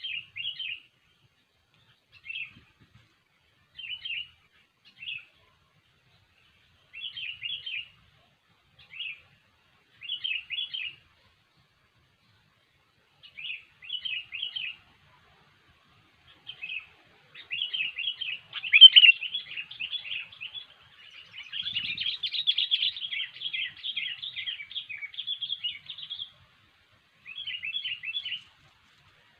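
Sooty-headed bulbul (kutilang) singing: short bubbly chirping phrases every second or two, breaking into a long continuous run of chirps about two-thirds of the way in, then back to short phrases near the end.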